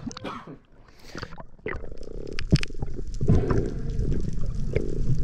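Water sloshing at the surface, then from about two seconds in a muffled underwater rumble of moving water and bubbles with scattered clicks, as heard by a submerged camera.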